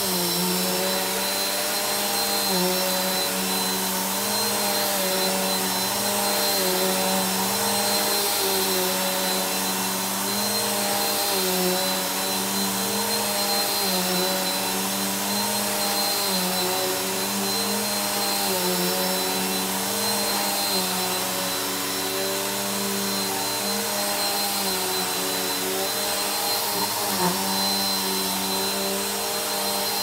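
Vacuum cleaner running steadily while its head is pushed back and forth over a thick rug: a steady motor hum with a high whine over the rush of airflow. The hum dips a little in pitch every couple of seconds.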